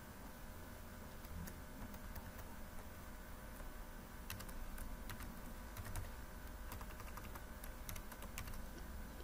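Typing on a computer keyboard: faint, irregular keystroke clicks, more of them in the second half, over a steady low hum.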